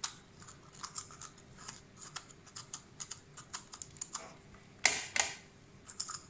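A small knife scraping and clicking inside a hollowed green bell pepper (capsicum) as the seeds and pith are cleaned out: many quick, light scrapes, with a louder pair of scrapes about five seconds in.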